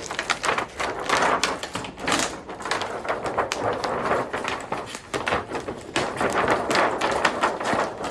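Irregular plastic clicking, knocking and crinkling as the retaining clips and plastic sheets inside an opened LCD TV are handled and pulled off the backlight panel.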